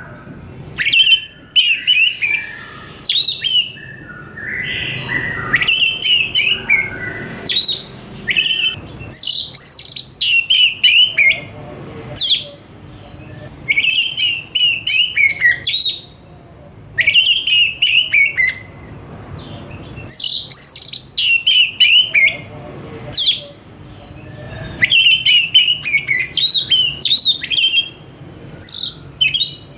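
Oriental magpie-robin (kacer) singing: short bursts of fast, varied whistles and chatter, one every two or three seconds, with brief pauses between them.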